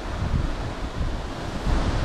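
Gusty typhoon wind buffeting the microphone: an uneven, rumbling rush of noise that swells and eases.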